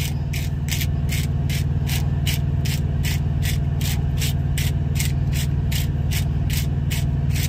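Garlic-salt grinder being twisted, giving even ratcheting clicks about four times a second, with a steady low hum underneath.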